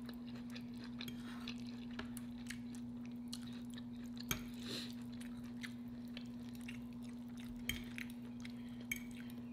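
A person chewing food close to the microphone: soft wet mouth clicks and smacks, with a few louder ones about four, eight and nine seconds in, over a steady low hum.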